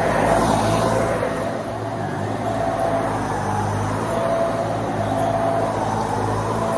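Dyson Ball Multifloor 2 upright vacuum cleaner running steadily: a constant motor hum with the rush of air.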